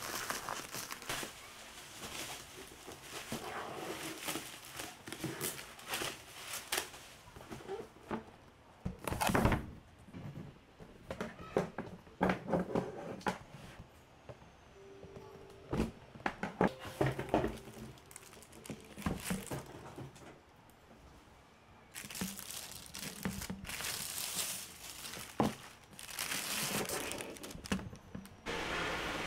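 Plastic packaging crinkling and tearing as a parcel in a black plastic mailer is cut open and unwrapped, with irregular knocks and thuds from a cardboard box being handled.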